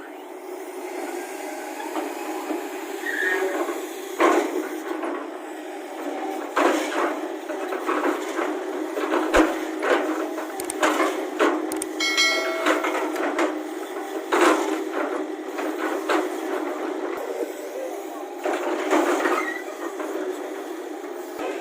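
Excavator engine running steadily under a series of irregular heavy clanks and knocks, typical of the bucket working on stone. A short high-pitched squeal comes a little past the middle.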